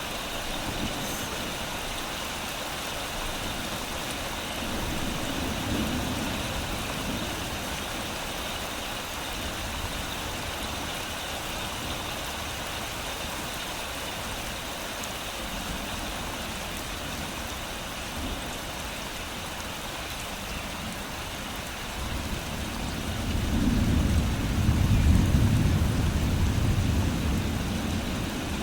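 Steady rain falling on garden leaves. A low rumble of thunder swells about five seconds in, and a louder one rolls in near the end.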